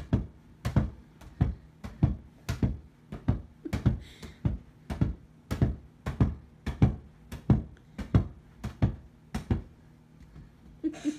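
A steady run of dull thumps, about three a second, getting weaker near the end.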